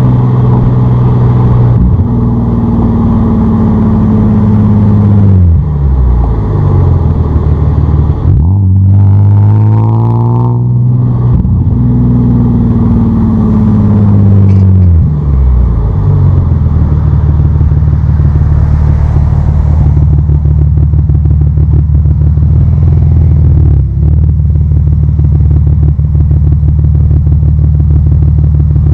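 Audi A4 3.0 Quattro's V6 through a custom exhaust: the revs drop, climb quickly in a short burst of acceleration about nine seconds in, then fall away again. For the second half the engine holds a steady low idle note.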